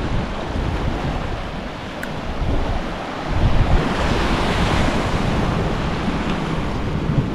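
Sea waves washing on a rocky shore, swelling about three seconds in, with wind buffeting the microphone.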